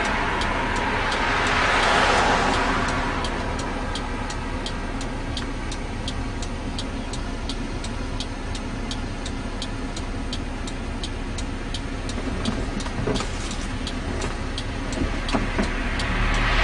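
A car's turn-signal indicator ticking evenly, about two and a half ticks a second, over a car engine idling. A passing vehicle's rush swells about two seconds in.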